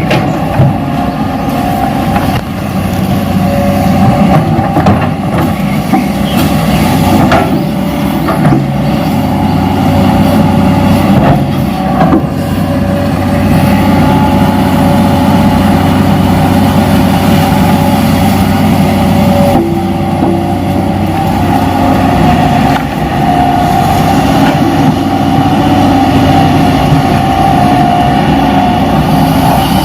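Radio-controlled toy excavator running: a steady mechanical whir and hum from its drive, with a few sharp knocks in the first third.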